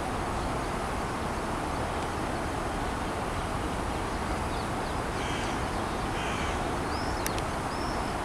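A few short calls from hooded crows, in the second half, over a steady low background rush.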